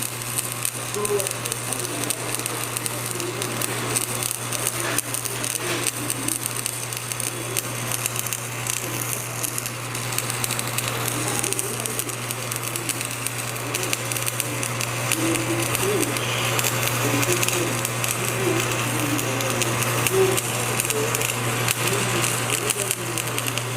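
Shielded metal arc (stick) welding: the arc crackles and sizzles steadily while the second pass of a flat-position fillet weld on 10 mm plate is laid, over a steady electrical hum.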